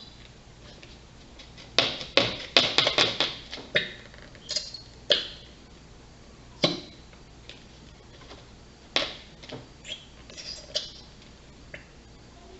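Plastic glue bottle being shaken and knocked against a container to get the last glue out: a quick flurry of clicks and knocks, then scattered single taps.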